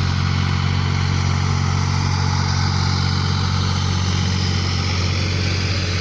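Farm tractor engine running at a steady speed while it drives a side-mounted mower through grass, a constant low hum with a hiss over it.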